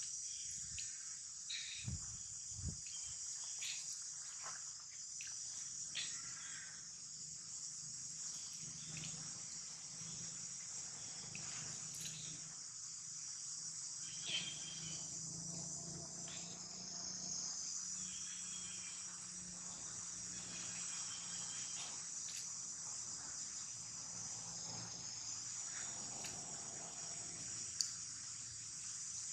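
A steady, high-pitched chorus of insects shrilling without a break, with a few short sharp clicks over it.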